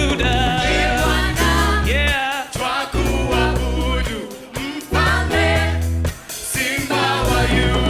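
Gospel worship song: voices singing over a band with strong, sustained bass notes.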